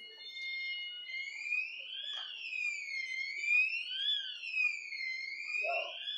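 Electronic siren wailing, a high tone rising and falling in pitch about once every two seconds; it switches from a steady tone to the wail about a second in.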